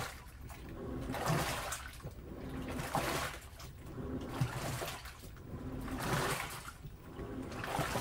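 Panasonic NA-FS160P3X top-loading washing machine agitating clothes in soapy water during its wash stage: water sloshing and churning in swells about every one and a half seconds as the pulsator drives the load back and forth, with a low motor hum under each swell.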